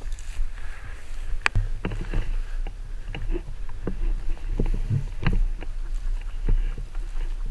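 Irregular close knocks and clicks of handling and movement, over a steady low rumble.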